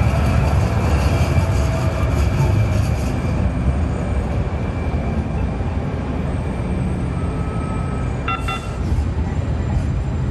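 Valley Metro light rail train pulling away along a city street, its electric motor whine and running noise fading over the first few seconds as it draws off, over a steady low rumble of street traffic. A short beep sounds about eight seconds in.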